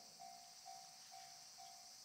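Faint Japanese railway level-crossing alarm ringing: one electronic bell tone repeated about twice a second, over a steady high-pitched hiss. It is the warning that the crossing is closed for an approaching train.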